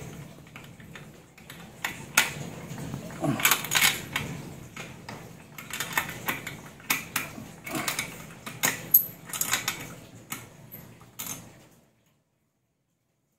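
Scraping carbon deposits off a fouled spark plug's tip with a thin pointed tool: an irregular run of short scratches, clicks and small taps. It cuts off suddenly near the end.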